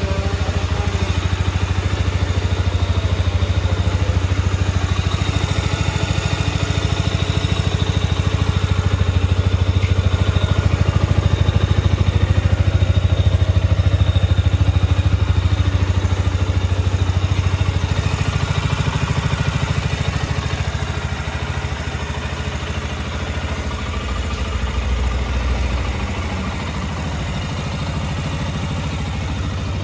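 KTM Duke 125's single-cylinder four-stroke engine idling steadily, a little quieter in the last third.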